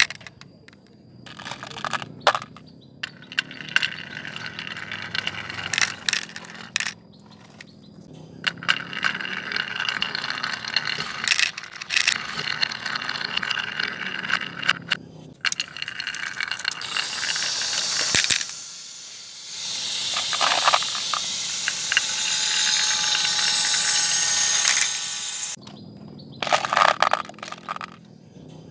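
Marbles rolling and clattering down a Haba wooden marble run, with sharp clicks as they drop onto and knock against the wooden pieces. From about halfway to near the end there is a longer, louder stretch of continuous rolling and rattling, which stops suddenly.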